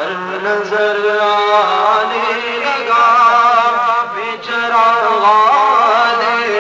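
A man singing a manqabat, an Urdu devotional praise poem, unaccompanied, in long, wavering, ornamented held notes.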